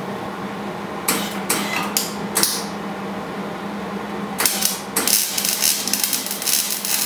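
Welding arc crackling in short bursts as tack welds go onto a steel trunk-lid hinge bracket. There are four quick tacks about a second in and another about four and a half seconds in, then a longer run of crackle near the end, all over a steady low hum.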